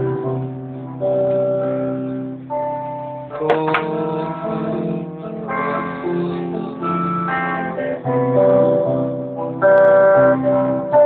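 Guitar played live: a run of chords, each held for a second or two before the next.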